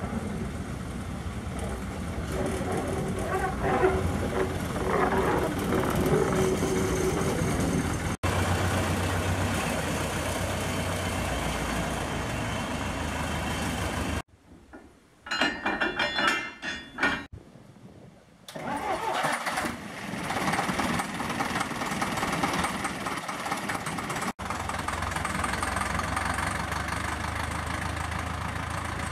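Small narrow-gauge diesel locomotive engines running and idling, split into several short clips with sudden cuts. Near the middle there is a few-second quieter stretch with a short, bright, higher-pitched sound.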